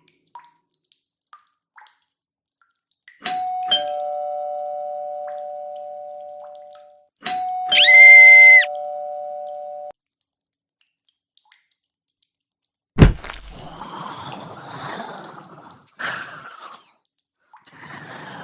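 Two-tone ding-dong doorbell chime, rung twice about four seconds apart, each ring a high note then a lower note fading slowly; the second ring is overlapped by a loud, steady high buzz for about a second. Later, a sharp bang is followed by a few seconds of noisy clatter.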